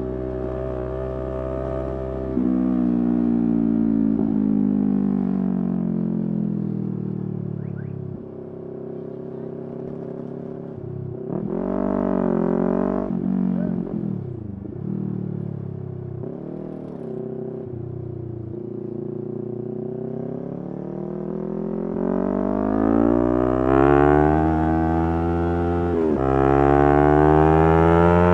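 Yamaha R3's 321 cc parallel-twin engine under way: revs fall steadily for several seconds as it slows, a few quick throttle blips come about halfway through, then revs climb hard with an upshift near the end before rising again.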